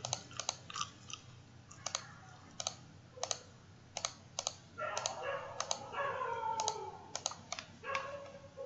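Computer mouse clicking, a sharp click every half second to second, some in quick pairs, as beam members are drawn node to node in modelling software.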